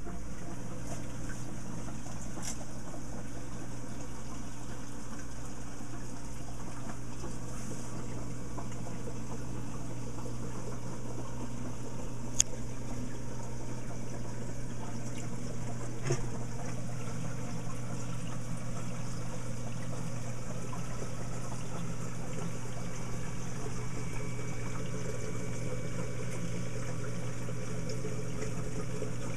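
Reef aquarium's water circulation: a steady trickle of running water over an even low hum, with a sharp click about twelve seconds in.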